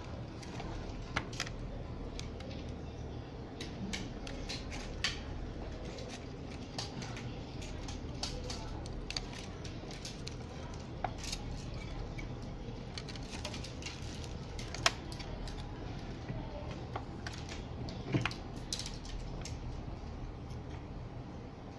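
Irregular small clicks, taps and light clatter of hands handling a car stereo head unit's sheet-metal chassis, circuit boards and ribbon-cable connectors, over a steady low background hum. Two sharper clicks stand out, at about 15 and 18 seconds in.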